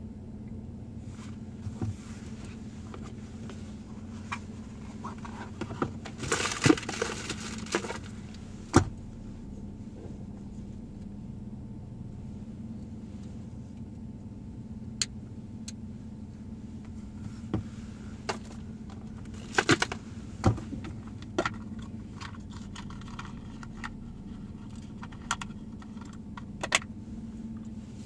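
Car idling while stopped, a steady low engine hum heard inside the cabin, with scattered sharp clicks and a short burst of clicking and rattling about six to eight seconds in.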